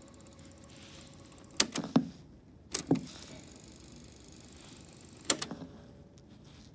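Sharp mechanical clicks and clunks from the cassette deck of a Citizen JCTR141K double-cassette boombox, typical of its piano-key transport buttons and tape mechanism being worked. They come in three short groups, the last a brief rattle of clicks.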